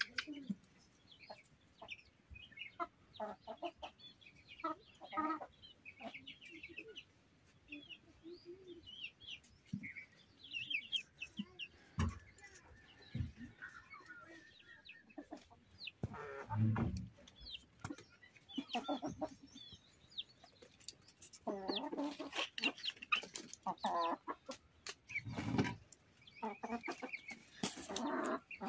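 Chickens clucking on and off, with scattered knocks and clatter of metal pots being handled and a few heavier thumps.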